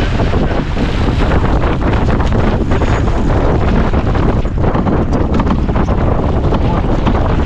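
Strong wind buffeting the microphone over the rush of water along the hull of a Farr 280 sportsboat sailing at speed. A few short clicks and knocks come in the second half.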